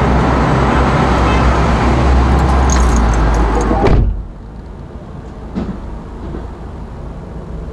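Outdoor noise with a steady low hum coming in through an open car door, cut off by the car door slamming shut about four seconds in; after that only a muffled, much quieter hum inside the closed cabin, with a small knock.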